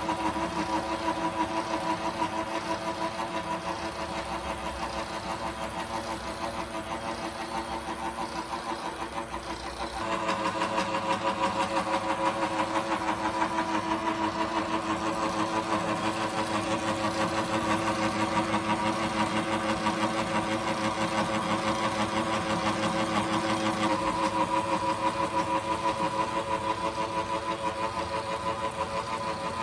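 Atlas milling machine running while milling slots in a tool post: a steady machine hum with a fast, even pulsing. About ten seconds in it grows louder and rougher, and it shifts in tone again later.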